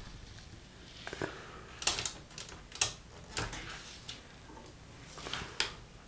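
Scattered clicks and light knocks from hands working the carriage of an Olivetti Lettera 25 manual typewriter, around the paper bail and platen knob, the sharpest about two and three seconds in.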